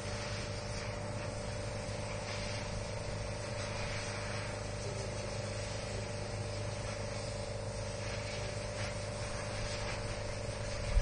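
Steady mechanical hum with a few held low tones, unchanging throughout.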